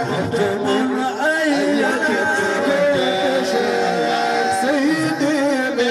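Several men's voices singing a devotional religious chant through microphones and loudspeakers. Held, bending melodic lines overlap without pause.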